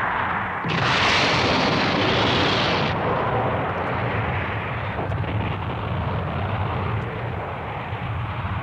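Anime sound effects of explosions: one brighter blast begins about a second in and lasts about two seconds, then settles into a continuous rumble of fire and destruction as the warship and fortress are torn apart.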